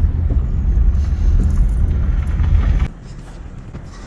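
Minivan driving on a rough dirt road: a loud, low rumble that drops away suddenly about three seconds in.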